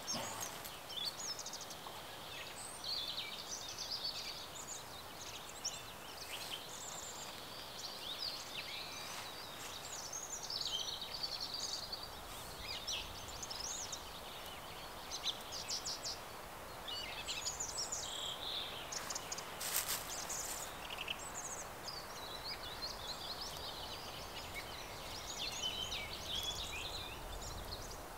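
Several songbirds singing, with overlapping chirps and trills over a steady background hiss. A few short clicks come about twenty seconds in.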